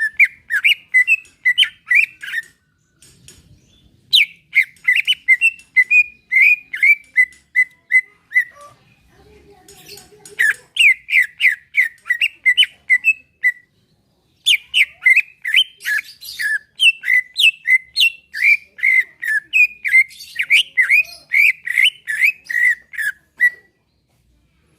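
Green leafbird (cucak ijo) singing: fast runs of clear, short whistled notes, many sweeping downward, about three or four a second. The song comes in four phrases, with brief pauses at about 3, 9 and 14 seconds in.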